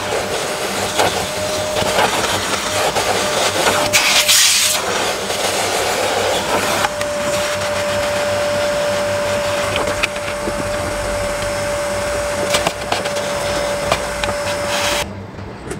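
Vacuum cleaner running with a steady whine and scattered knocks and scrapes as the nozzle works over the car's interior. The whine drops out for about two seconds near the middle, and the sound cuts off abruptly near the end.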